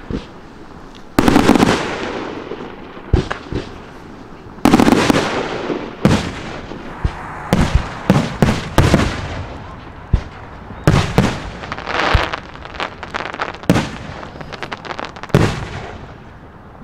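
Fireworks display: aerial shells bursting with a dozen or more sharp bangs, each trailing off as it echoes. Some come singly and others in quick clusters of several reports.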